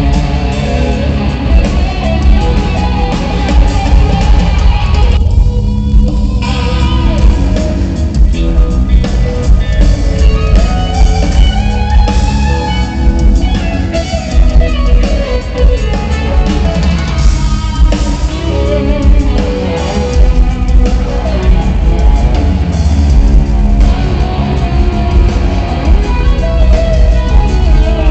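Rock band jamming live at a sound check: loud electric guitar over bass and drum kit, playing without a break.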